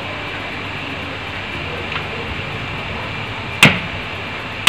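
Two sharp knocks of a kitchen utensil against a mixing bowl, the second louder, about a second apart near the end, over a steady background hiss.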